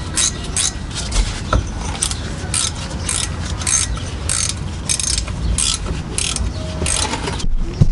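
Hand ratchet wrench clicking in short runs, about two strokes a second, as it runs in a bolt securing the drive shaft flange.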